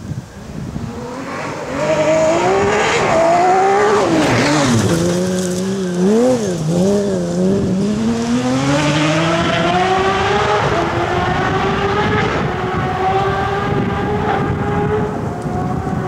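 Peugeot Cosworth rally car's engine, loud, passing through a gravel forest corner. The revs climb, drop sharply about four and a half seconds in, rise and fall several times through the bend, then climb steadily as the car pulls away.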